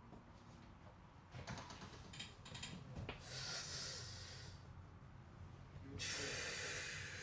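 A person breathing out hard twice, each breath over a second long, with a few faint clicks and taps before the first.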